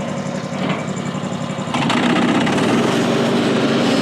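Small gasoline engine, likely the portable band sawmill's, running steadily. It gets louder about two seconds in.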